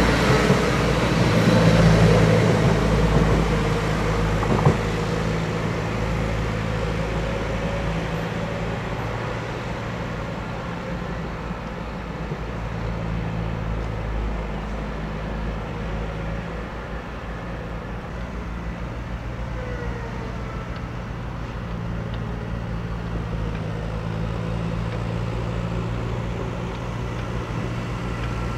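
Diesel engine running at a steady idle, louder for the first few seconds, with one sharp knock about five seconds in.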